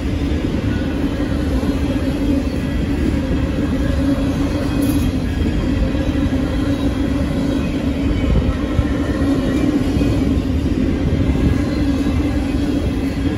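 Freight train of container flatcars rolling past close by: a steady rumble of steel wheels on the rails with a constant low drone over it.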